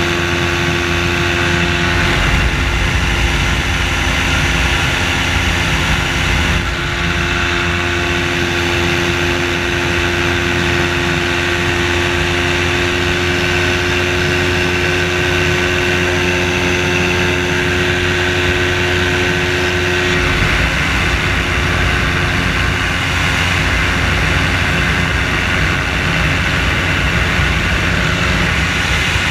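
Hydro-trike microlight's engine and propeller running steadily in cruise flight, a loud even drone. About two-thirds of the way through, the engine note shifts slightly.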